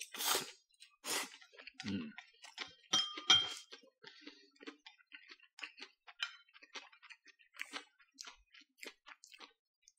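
A person slurping up a mouthful of yakisoba noodles, then chewing with a run of short, soft clicks; a couple of louder sounds come about three seconds in.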